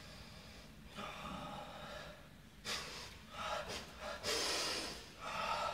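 A man's forceful, audible breathing: about five sharp breaths drawn in and pushed out, coming closer together and growing stronger. This is a ki breathing routine, building up power before a palm-breaking strike.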